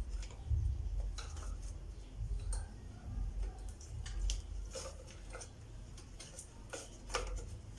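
Scattered light plastic clicks and taps, about eight of them, from a hair dryer's housing parts being handled and fitted back together during reassembly.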